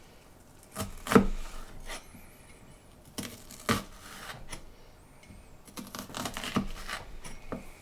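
Vegetables being handled and cut with a knife on a chopping board: irregular knocks and scrapes in three short clusters, about a second in, around three to four seconds, and from about six seconds on.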